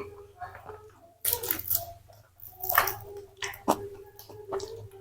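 Close-miked eating sounds of round fried tofu: irregular bites and chewing with several sharp crunchy, wet smacks.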